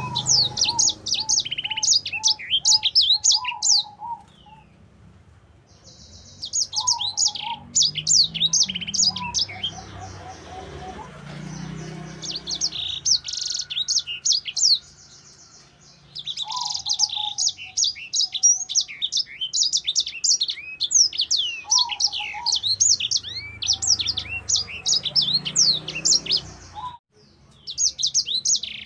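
A sanger (streaky-headed seedeater) singing in full continuous song: a fast, high, chattering warble of rapid trilled notes. It comes in bursts several seconds long, broken by brief pauses.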